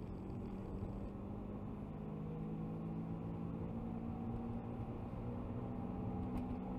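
Car driving at steady speed, heard from inside the cabin: a steady low engine hum over even road and tyre noise.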